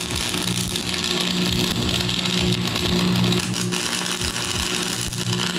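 Stick arc welding on steel: the electrode's arc crackles and sizzles steadily as the bead is run, stopping near the end.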